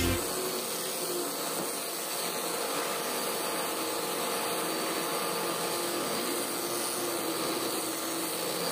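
Electric angle grinder fitted with a sanding disc, running steadily as it sands the wooden slats of a tabletop.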